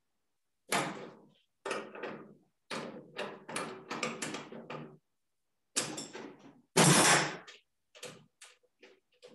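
Metal clanking and knocking as a copper work coil is taken off and fitted to an induction heater: a run of short knocks, with a louder, longer clatter about seven seconds in.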